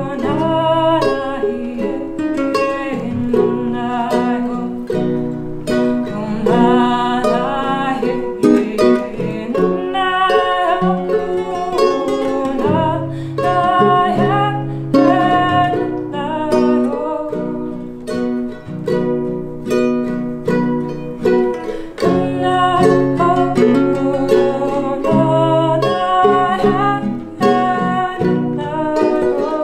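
A woman singing a medicine song, accompanied by her strummed ukulele and a man's acoustic guitar.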